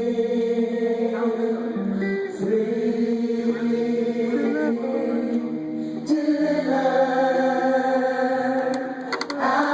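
A small vocal group singing a gospel song in harmony, several voices holding long chords that change every second or two.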